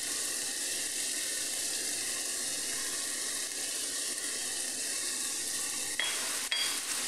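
Diced tomatoes and nuts sizzling steadily in a frying pan, with a couple of short clicks about six seconds in.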